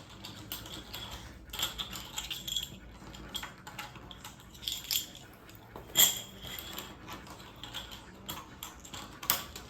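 Scattered clicks and light rattling of small hard objects being handled, with a sharper click about six seconds in.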